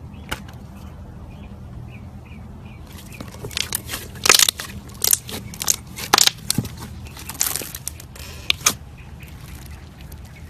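Slime being squeezed and pressed, giving a run of sharp crackling and popping sounds for several seconds after a single click near the start.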